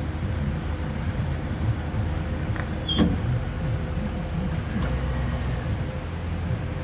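1999 Chevy Silverado pickup's engine idling steadily, with a single sharp click about halfway through.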